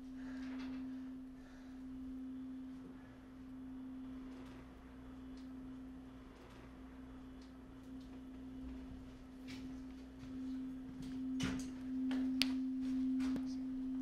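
A steady low pure tone held without change, with a few soft clicks and knocks near the end.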